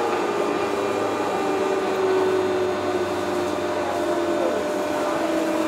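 Steady whirring hum of a JR 201 series electric train's running equipment, heard from on board, with several thin tones that slowly fall in pitch.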